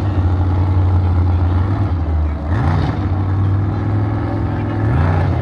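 A large engine running steadily at a low pitch, revving up and back down briefly twice, about halfway through and near the end.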